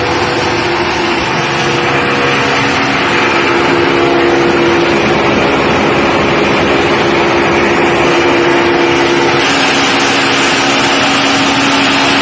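Corn grits and corn flour milling machine running: a loud, steady mechanical din with a humming tone through it. About nine seconds in, the hum shifts to a lower pitch.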